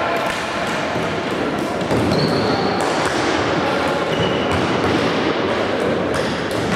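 Floorball play echoing in a large sports hall: rapid clicks and knocks of sticks and the plastic ball, players' footsteps and the general din of the game, with two brief high squeaks.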